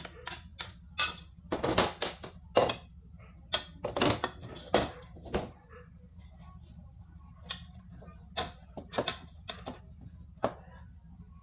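Kitchen knife hacking into a peeled green papaya held over a plastic bowl: a run of irregular sharp clicks and knocks, closely spaced in the first half and sparser after.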